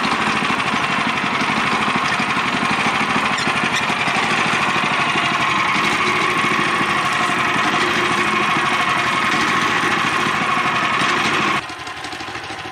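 Gas-engine band sawmill running at high speed, its blade cutting through an old-growth eastern white pine timber. Near the end the sound drops sharply and the engine carries on running more quietly.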